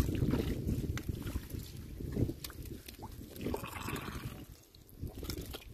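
Shallow muddy water splashing and sloshing as hands grope through it and the mud in search of fish, in irregular short bursts.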